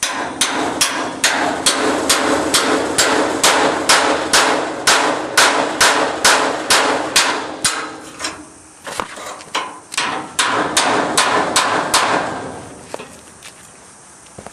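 Hammer blows on a steel punch driven against a broken steel ramp tab on a trailer frame: a steady run of about two to three ringing metal strikes a second, stopping about twelve seconds in.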